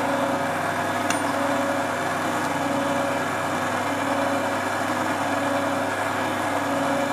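Electric stand mixer running steadily, its wire balloon whisk beating cake batter with a constant motor hum while flour is added.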